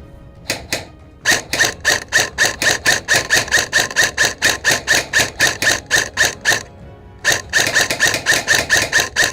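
Airsoft rifle firing rapid shots, about four or five a second, each with a sharp click and a short ring. It fires in two long strings with a pause of under a second between them.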